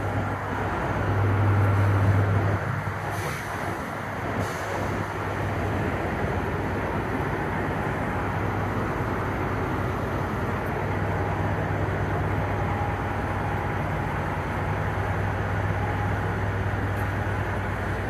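Idling diesel semi trucks across a truck-stop lot, a steady low engine drone that swells briefly about a second in.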